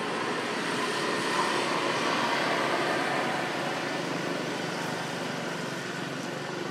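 Steady rushing outdoor background noise that swells for a few seconds and then eases off again.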